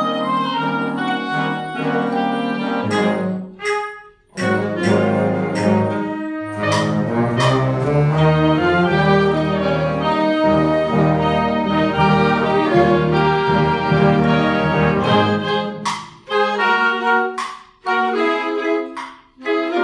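Concert band playing a blues piece: sustained brass and woodwind chords, a brief break about four seconds in, then a full passage with heavy low brass, ending in short, separated chords.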